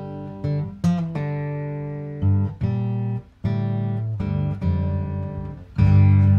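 Background music: an acoustic guitar playing strummed and plucked chords, breaking off briefly about three seconds in.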